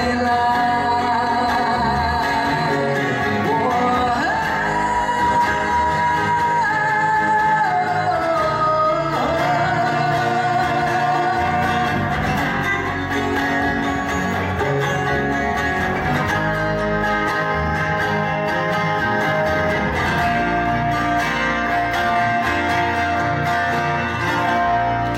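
Live band music: two men singing over strummed acoustic guitars and an electric guitar, with long held notes.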